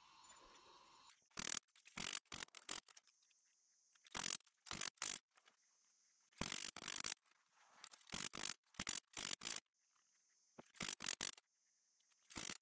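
Quiet short scraping strokes of metal, in quick groups of two to four with pauses between, as a bent welded steel test coupon is handled.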